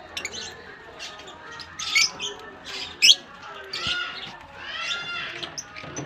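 Budgerigars chattering in a mixed aviary: a run of short high chirps and squawks, sharpest about two and three seconds in, then a warbling call a little before the end.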